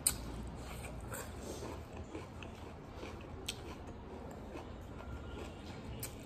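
A crisp bite into a raw cucumber slice right at the start, the loudest sound. Close-miked chewing follows, with a few sharp mouth clicks spread through the rest.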